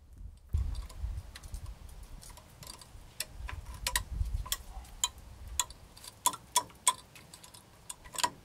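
Light, irregular metallic taps and clicks, about one or two a second and each with a short ring, as a small metal tool works a bent brake caliper pin back into place on a 1984 Dodge D50's front caliper. A low rumble of handling runs under the first half.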